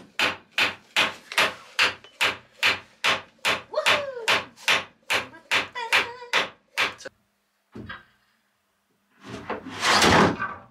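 Manual chain hoist worked stroke by stroke to lower a sailboat's rudder: a steady run of rattling, scraping strokes about three a second, with a squeak midway, stopping at about seven seconds. Near the end comes a louder, longer scraping burst.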